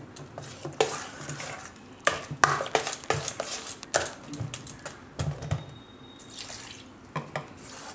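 Metal spoon stirring a thin, wet batter of banana, wheat flour and water in a stainless steel bowl: wet sloshing with irregular clinks and scrapes of the spoon against the bowl.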